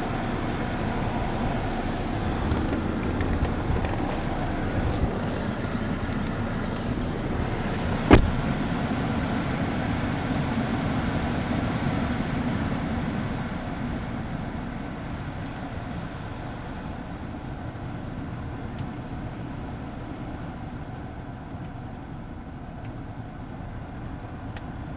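Steady rush of the climate-control blower and running engine heard inside a 2008 Cadillac CTS cabin. A single sharp click comes about eight seconds in, and the noise eases off a little past the middle.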